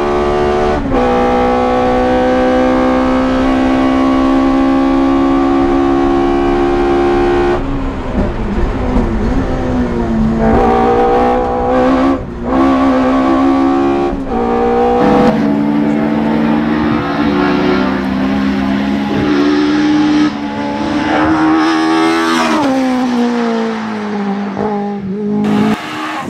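Alfa Romeo Sprint 1600 hillclimb race car's engine running hard at high revs, holding a steady note for long stretches, with several brief drops in pitch at gear changes.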